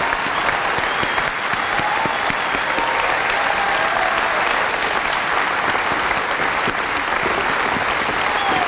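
Large audience and orchestra applauding: dense, steady clapping after a song.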